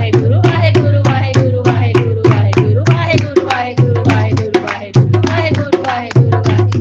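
Devotional music: a quick, steady beat of tabla-like drum strokes over a pulsing low bass, with a gliding melody line above.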